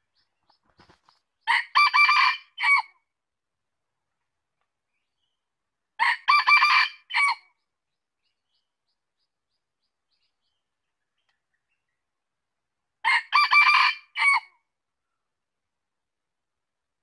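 Red junglefowl rooster crowing three times, several seconds apart. Each crow is short and clipped and ends in a brief separate final note.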